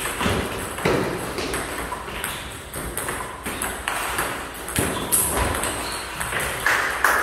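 Table tennis balls in a fast multiball drill: a quick, irregular run of sharp clicks as balls bounce on the table and are hit off the paddles, with a few louder cracks from hard forehand strokes.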